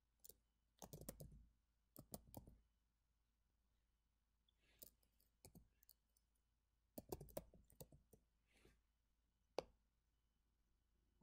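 Quiet computer keyboard typing in short runs of keystrokes separated by pauses of a second or two, with a single sharper click near the end.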